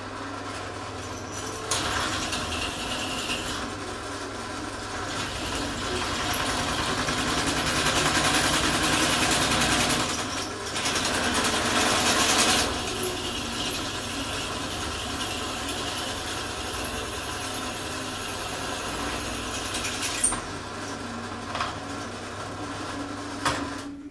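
Bench drill press running with a steady motor hum while the bit cuts through a metal part, the cutting noise louder in two stretches in the middle. The motor stops near the end.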